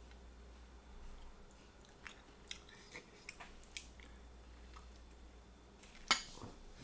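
Close-up chewing of barbecue chicken, with scattered wet mouth clicks and smacks and one sharper click about six seconds in.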